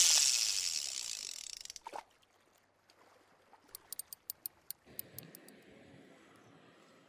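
A loud rush of noise that fades away over about two seconds, then, after a short pause, a quick run of about ten sharp clicks, followed by faint background noise.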